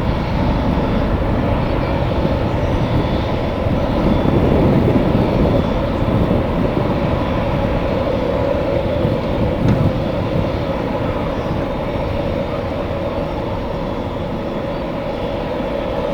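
Airliner engines running with a steady roar and a steady whine over it, a little louder about four to six seconds in, with strong wind rumbling on the microphone.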